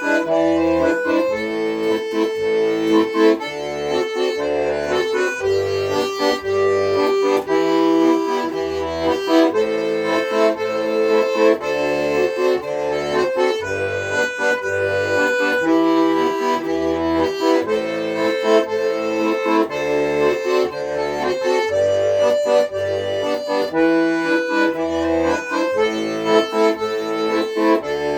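Accordion playing an instrumental passage of a traditional-style tune: held melody and chord notes over a bass note struck on a steady beat.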